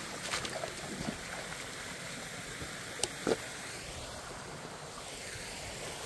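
A small rocky mountain creek running, a steady rush of water, with a few short clicks near the start and about three seconds in.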